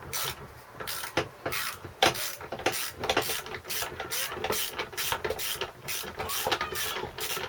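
Socket ratchet wrench clicking in repeated short strokes, a few clicks a second, as bolts are worked loose.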